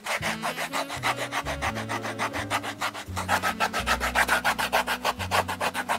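Hand rasp scraping back and forth over the forefoot of a leather outsole in rapid, even strokes, about seven a second, roughening the surface so a rubber half sole will bond to it.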